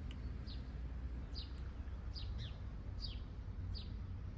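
A songbird repeating short, high, falling chirps, about one and a half a second, over a steady low rumble.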